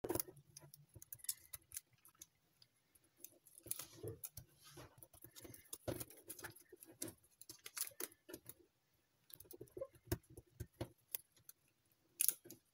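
A square of gold foil-backed paper being creased and folded by hand: irregular crinkles and crackles of the foil with soft rustling, one sharper crackle near the end.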